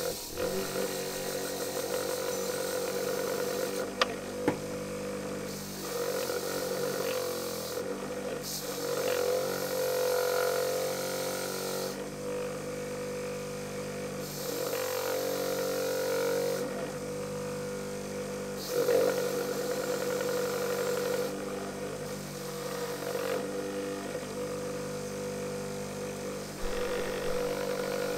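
Bench-mounted wire wheel running with a steady motor hum, with a rasping hiss each time the chisel's tang is pressed against it, stripping rust and old glue from the tang. The hiss comes and goes repeatedly, and there are a couple of sharp clicks about four seconds in.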